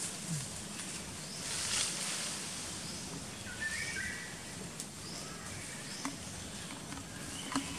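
Forest ambience with a steady high hiss. A bird gives a short run of chirps about four seconds in and again at the end, and a few light clicks and a brief rustle are scattered through it.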